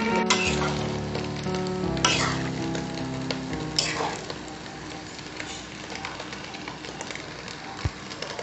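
Background music for the first few seconds, then a pot of thick chicken and green papaya curry simmering, with a soft, steady bubbling crackle.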